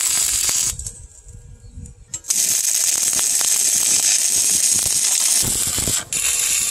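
Stick welding arc crackling and hissing as an electrode rod lays a bead joining a steel pipe socket to a steel plate. The arc stops about a second in, strikes again about two seconds in and runs steadily, with a short break about six seconds in.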